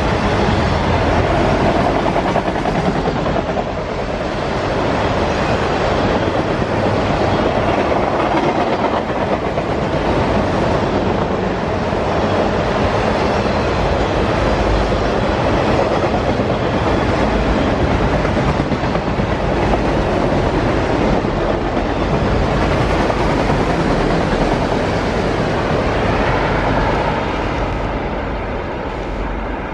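Long freight train of autorack cars rolling past, the steady rumble and clack of steel wheels on the rails. The sound eases off near the end as the last cars pass and draw away.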